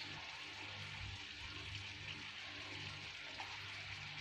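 Sugar syrup simmering in a pan on a lit gas stove: a faint, steady bubbling hiss over a low hum.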